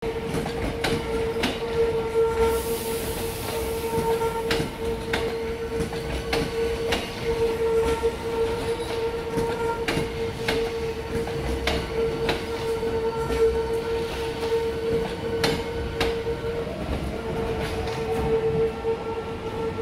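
Hankyu 1300-series electric train rolling slowly past, its wheels clacking over rail joints at irregular intervals, with a steady high whine throughout. A fainter rising tone comes in near the end as the train pulls away.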